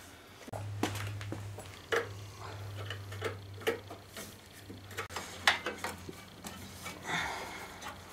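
Light metal clicks and taps as a hand tool works the carburetor linkage rod loose on a Tecumseh 5 hp snowblower engine. A low steady hum starts about half a second in and fades near the end.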